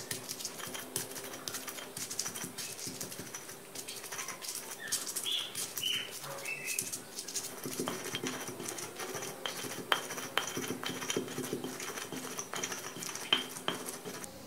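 Stone pestle crushing and grinding chillies, shallots, garlic and spices against a flat stone mortar (Indonesian cobek and ulekan): a steady scraping with frequent small knocks of stone on stone.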